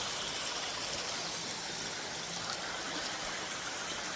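Mountain creek running over small cascades: a steady rushing and splashing of water.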